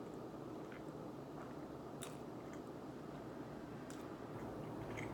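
Quiet chewing of food, with a few soft clicks from the mouth over a steady low hum in the room.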